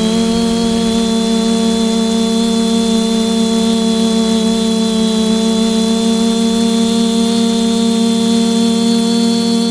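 Multirotor camera drone's electric motors and propellers buzzing steadily in flight: a loud, even hum with a thin high whine above it, heard from the camera on board.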